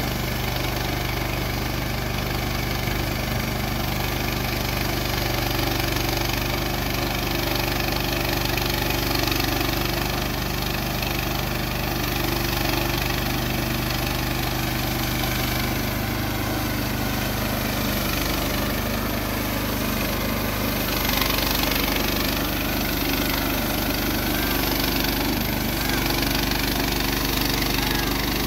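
Woodland Mills HM130Max portable bandsaw mill sawing through a log: its small gasoline engine runs steadily under load while the band blade cuts.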